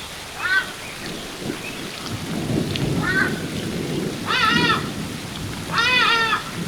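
Ibis calling: short arched calls, some in quick pairs, repeated several times over the steady rushing of a waterfall.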